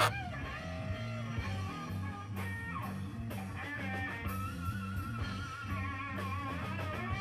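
Guitar-led background music: a melody whose held notes waver with vibrato over a steady, repeating bass line. A single sharp click sounds right at the start.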